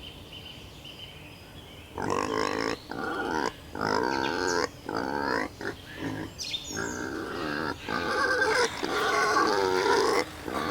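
Pigs calling: a run of about ten short, pitched calls in quick succession, starting about two seconds in.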